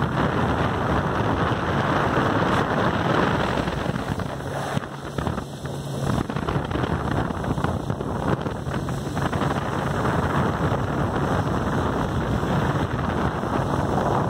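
Wind buffeting the microphone over a motorboat's engine running steadily under way and water rushing past the hull, with a brief lull about five seconds in.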